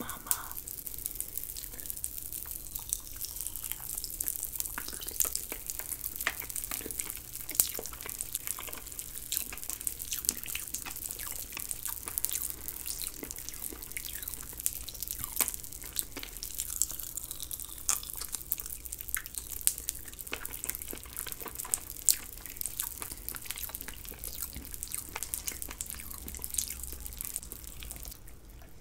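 Close-miked wet mouth sounds of eating a jello popsicle: a dense run of sticky clicks and smacks as it is bitten and chewed.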